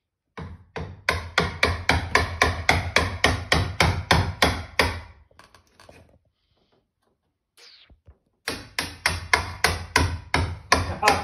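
Claw hammer striking rapidly at the top of a wooden door frame, about four or five blows a second. The blows come in two runs separated by a pause of about three seconds.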